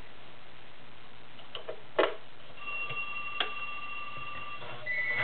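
A few sharp clicks from a Viking 2841 sewing machine's controls as it is set up for the next stitch, the loudest about two seconds in. A faint steady high tone runs through the second half, and the machine starts running near the end.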